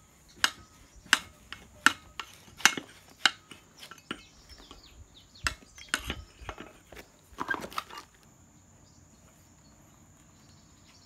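Sharp metallic clinks and knocks as the gearhead and aluminium drive tube of a Stihl FS 220 brushcutter are worked apart to free the drive shaft: about one knock a second for the first few seconds, then a few scattered ones.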